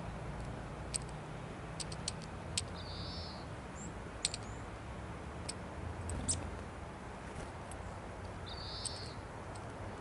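Eurasian nuthatch pecking at seeds in a small glass jar held in a gloved hand: a dozen or so sharp, irregular clicks of bill on seed and glass, with a couple of faint high chirps, over steady low background noise.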